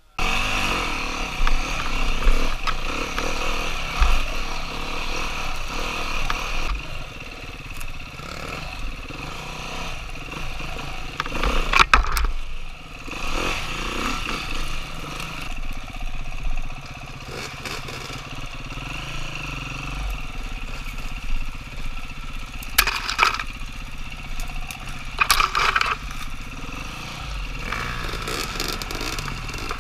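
Dirt bike engine running as the bike is ridden along an enduro trail, with a few short knocks and rattles from the rough ground.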